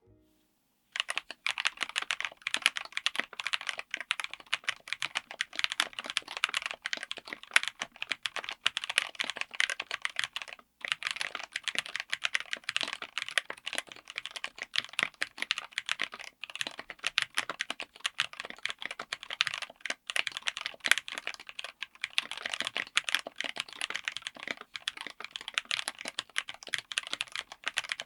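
Fast continuous typing on a mechanical keyboard with Jerrzi Violet tactile switches, in an aluminium case with an FR4 plate: a dense run of sharp keystroke clicks and bottom-outs. It starts about a second in and pauses briefly about ten seconds in.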